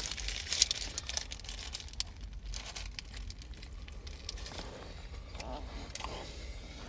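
Faint crinkling of a burrito's paper wrapper in the hands as the burrito is bitten into and chewed.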